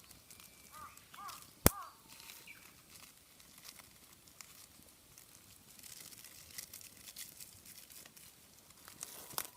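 Wood fire crackling with scattered small pops and one sharp crack a little under two seconds in. A few short bird chirps come in the first two seconds.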